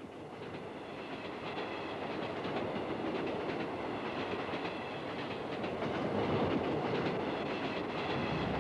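Electric commuter train running along the track with the clickety-clack of its wheels over the rail joints. It grows louder as it comes closer and is loudest in the second half.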